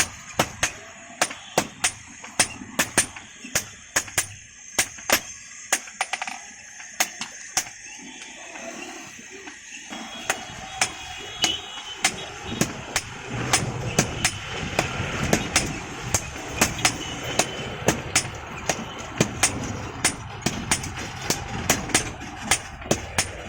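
A blacksmith's hammer strikes iron on an anvil over and over, about two to three blows a second, each with a short metallic ring.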